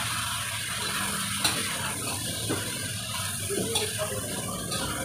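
A long metal ladle stirring vegetables in a large aluminium pot, with a few light knocks and scrapes against the pot, over a steady hiss of the cooking.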